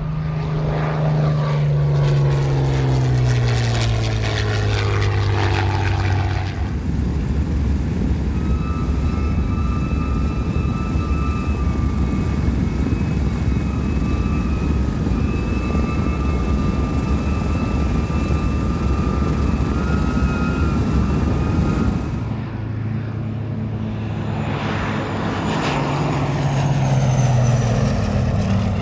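Propeller aircraft engines flying past, the engine note dropping in pitch as it goes by. For about the middle fifteen seconds this gives way to a steady rushing noise with a faint high whine, then another propeller aircraft passes with a falling note near the end.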